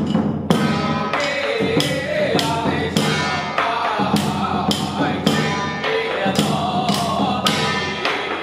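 Music with sharp percussion strikes, likely cymbals or gongs, about twice a second, under a wavering melody line.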